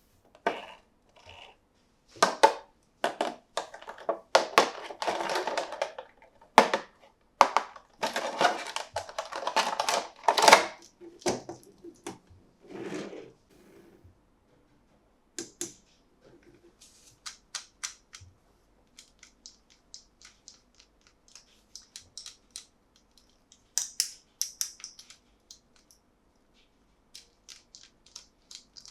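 Plastic toy packaging crinkled and handled in loud, rustling bursts for about twelve seconds, then a long run of small, light clicks and taps of hard plastic toy parts.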